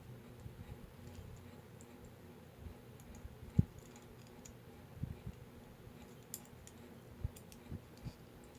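Small plastic toy figure parts and accessories clicking and tapping as they are handled, with a few soft knocks, one sharper than the rest about three and a half seconds in.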